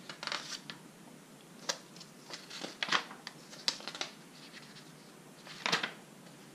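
Glossy paper pages of a booklet being turned by hand: a string of short rustles and flaps, one of the loudest near the end.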